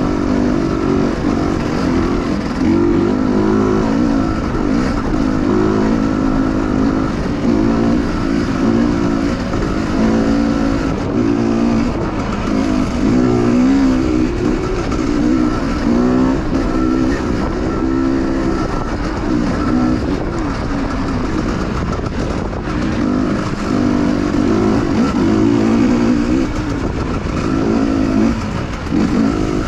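Dirt bike engine running hard and revving up and down over and over, its pitch rising and falling every second or two.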